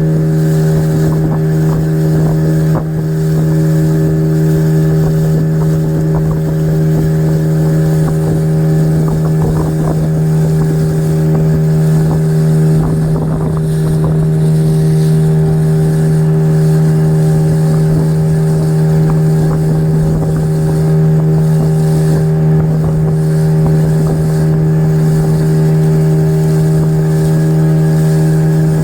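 Speedboat engine running at a steady, unchanging pitch, with a rushing hiss beneath it.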